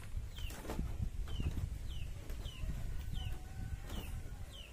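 A small bird chirping, a short falling note repeated evenly a little under twice a second, over rustling and light knocks of plastic bags and bottles being handled.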